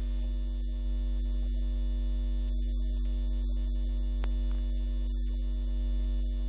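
Steady electrical mains hum: a constant low drone with a few fixed higher tones above it, unchanging throughout.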